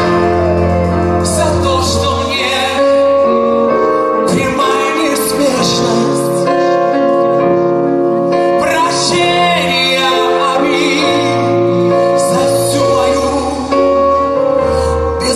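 A live band playing a slow song, keyboards and electric guitar under a male voice singing long, wavering notes.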